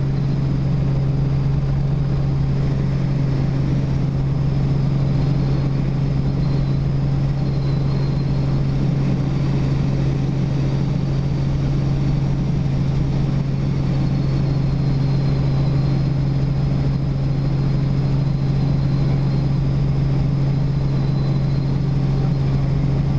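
Robinson R44 helicopter heard from inside the cockpit during takeoff and climb-out: the steady, loud drone of its piston engine and rotors, with a strong low hum.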